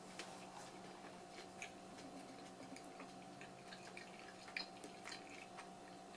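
Faint, wet chewing of a bite of pizza with the mouth closed: small scattered clicks and smacks, one slightly louder about four and a half seconds in, over a steady low hum.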